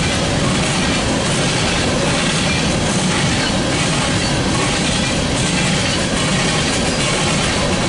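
Freight train of open-top coal cars rolling past: a steady, loud rumble and clatter of steel wheels on the rails.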